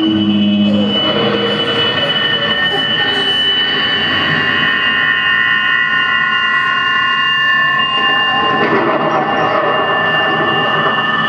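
Live electronic noise music from synthesizer and effects: several steady high tones held over a dense noisy drone, with a short falling glide about a second in. Near the end one tone drops out and the noise thickens.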